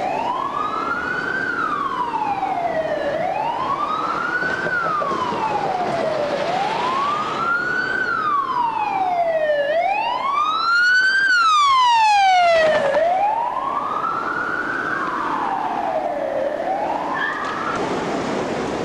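Emergency vehicle siren in a slow wail, its pitch rising and falling about every three seconds. It grows louder as it approaches, is loudest around eleven to twelve seconds in, then fades, over the hiss of street traffic.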